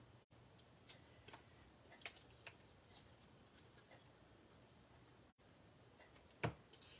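Faint crafting-table handling sounds: scattered light clicks and taps as small cardstock pieces are pressed together and glued, with one sharper knock about six and a half seconds in. A low steady hum runs underneath.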